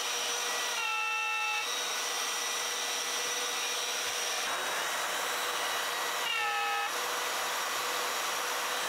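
Trend plunge router running with a dust extractor, cutting mortises in MDF through a mortising jig: a steady high whine over a hiss. Two short, higher-pitched whines come about a second in and at about six and a half seconds.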